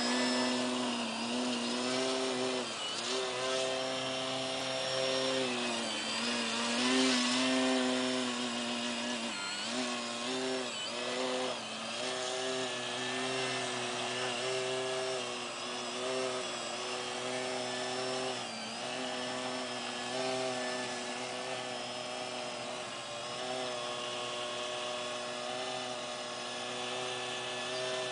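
Electric motor and propeller of a radio-controlled 3D foam plane hovering nose-up (prop-hanging), running with a steady whine. The pitch dips briefly and climbs back several times as the throttle is worked to hold the hover.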